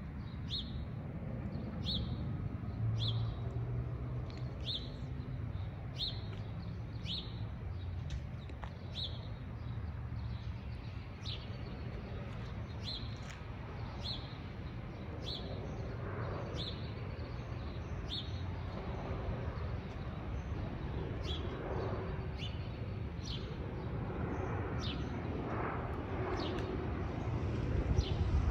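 A bird repeating a short, sharp, downward chirp about once a second, over a steady low rumble that builds near the end.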